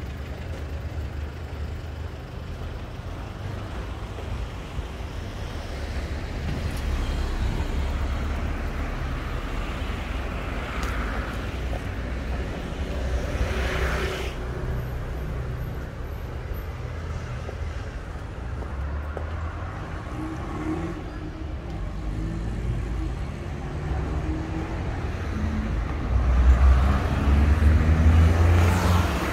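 Street traffic: a steady rumble of engines and tyres, with cars passing about a third and halfway through. Near the end a louder vehicle engine passes close, its pitch shifting.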